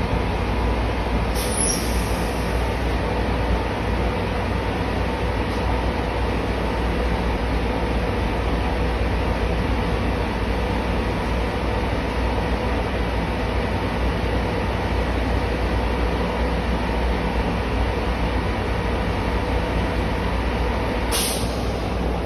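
A power tool running steadily without a break, with two short clicks, one about a second and a half in and one near the end.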